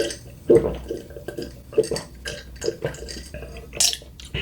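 Close-miked chewing and wet mouth sounds from someone eating fast food, a string of short irregular smacks and clicks, with a brief crackle near the end.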